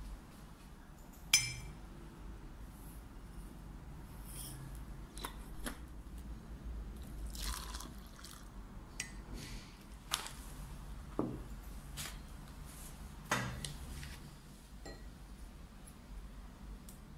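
Metal spoon clinking against a glass mug while a drink is stirred and water is added, with one sharp ringing clink about a second in and then scattered lighter clinks and taps of glass and cutlery.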